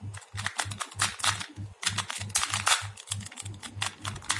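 A 2×2 Rubik's cube being scrambled: its plastic layers turned quickly by hand, giving a rapid run of clicks and rattles.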